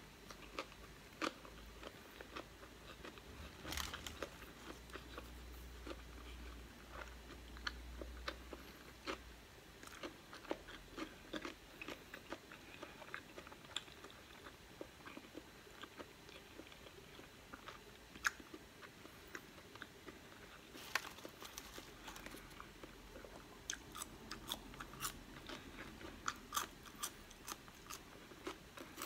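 A person eating: biting into and chewing a sesame-seed hamburger, then a crinkle-cut fry near the end, with many small, sharp chewing clicks and crunches.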